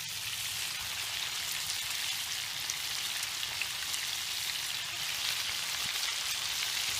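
Chicken deep-frying in hot oil: a steady sizzling hiss with small scattered crackles.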